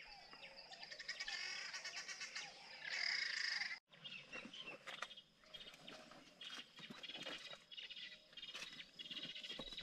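Faint birdsong: many birds chirping and calling, with one louder call just before the sound briefly drops out about four seconds in.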